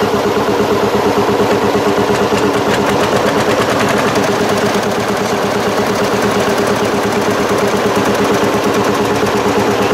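Tractor engine running steadily, its exhaust firing in a fast, even train of sharp beats.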